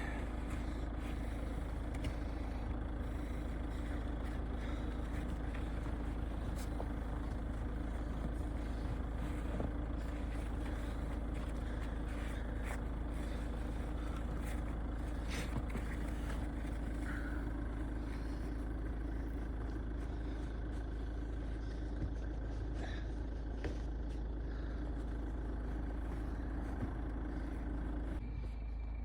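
Steady engine and road rumble of a Chevrolet driving, heard from inside the cabin, with a few faint knocks along the way.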